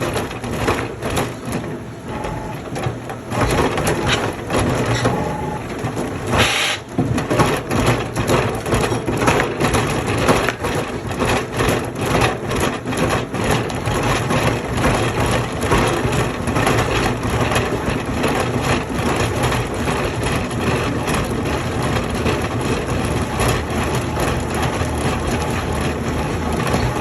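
A wood-processing machine running under load: a steady motor hum under dense, irregular cracking as wood is broken up, with a brief lull a little over six seconds in.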